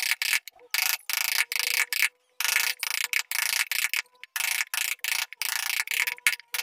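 Wood-carving chisel driven by a wooden mallet into a wooden door panel: a steady run of short, crisp cuts, about two a second, with brief silent gaps between them.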